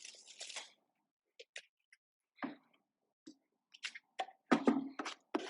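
Scattered light clicks and knocks of hand tools and lumber being handled during woodworking, sparse at first, then more frequent and louder in the last second or so.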